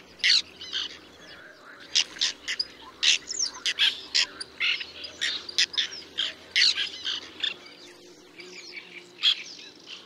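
Whiskered terns giving harsh, aggressive calls as they dive low over the sedge: a quick stream of short, sharp calls, some slurring downward, with a brief lull about eight seconds in.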